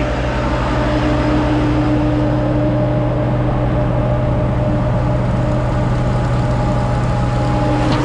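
Diesel engines of a concrete pump and a ready-mix truck running steadily while stiff shotcrete slides down the truck's chute into the pump hopper. A steady tone in the engine noise drops out about halfway through.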